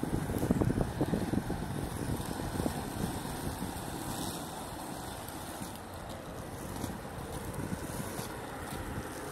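Inline skate wheels rolling fast over pavement, a steady rumble, with wind buffeting the microphone. It is rougher and louder in the first second or so, then evens out.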